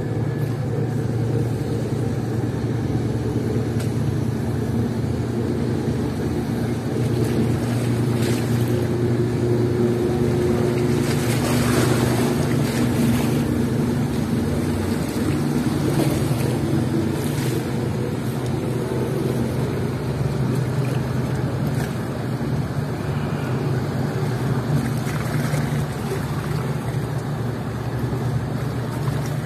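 Steady low drone of a large passenger ferry's engines over washing water, with a few louder rushes of wind and water around the middle.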